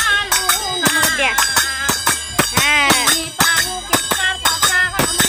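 Women singing a festival song to small hand cymbals struck in a steady beat, about three strikes a second, with a woman's voice leading the tune.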